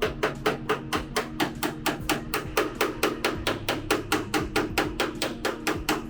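Rapid, even hammer taps, about five or six a second, over background music.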